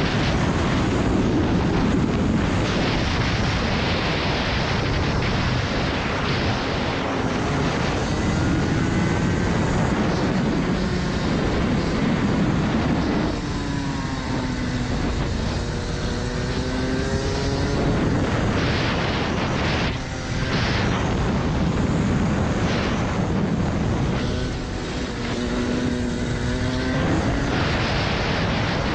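Rotax Max Senior 125cc two-stroke single-cylinder kart engine, fitted with a restrictor, running hard at racing speed. Its pitch drops and climbs back twice as the kart slows for corners and accelerates out again.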